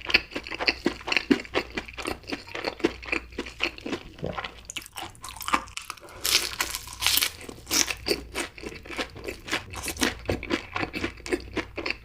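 Close-miked chewing of crunchy food, a quick, uneven run of crunches.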